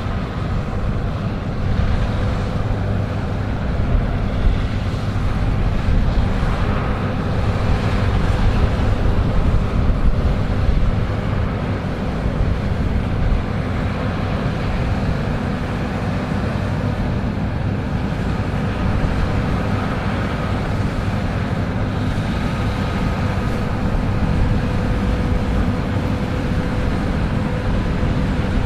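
Combine harvester running steadily while harvesting wheat: a constant engine and machinery drone with a steady hum.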